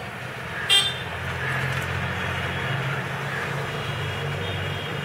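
Steady low hum of road traffic, with a short high toot about a second in.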